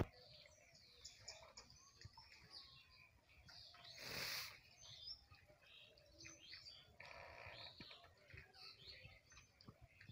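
Faint birdsong: many short chirps and tweets from small birds, with a brief rushing noise about four seconds in.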